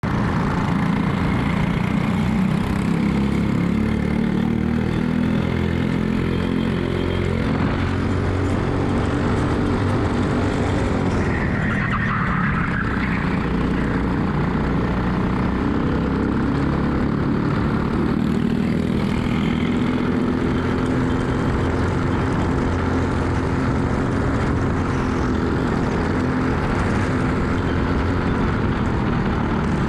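Racing kart engine heard onboard at race speed, its revs dropping and climbing again several times as the kart brakes into corners and accelerates out.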